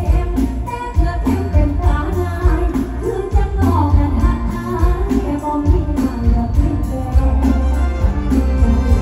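Live mor lam music played loud through a stage PA, with a heavy bass beat and a woman singing into a microphone.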